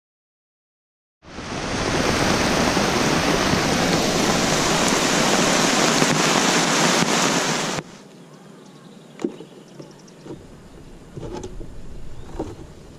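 Heavy rain hissing steadily, starting suddenly about a second in and cutting off abruptly after about seven seconds. It gives way to a much quieter outdoor background with a few small clicks and knocks.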